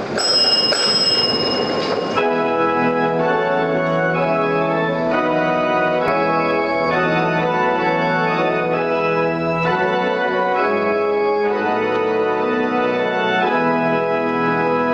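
Church organ playing sustained chords that change about once a second. It comes in about two seconds in, after a brief noisy rush with a ringing tone.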